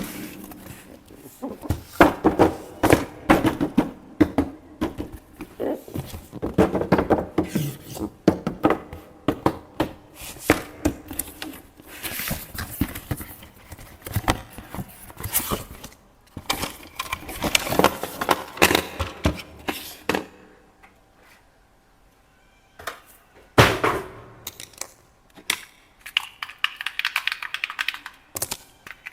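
Hands handling toy packaging and plastic parts: irregular clicking, knocking and crinkling, with a short lull a little past the middle, one loud knock just after it, and finer, higher crackling near the end.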